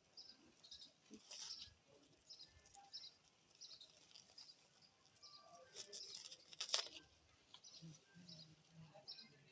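A small bird chirping over and over, short high chirps about twice a second, with a few faint sharp clicks, the loudest a little before the seven-second mark.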